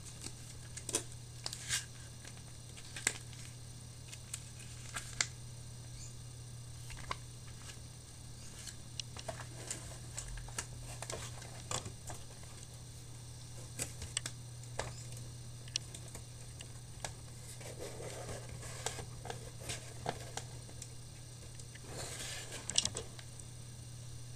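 Cardboard motherboard box and its paper manual being handled: scattered light taps and clicks, with brief rustling of card and paper twice in the second half, over a steady low hum.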